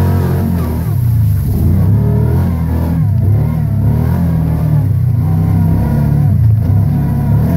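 Vehicle engine working hard under load up a steep dirt hill, heard from inside the cab, its note rising and falling repeatedly as the throttle changes.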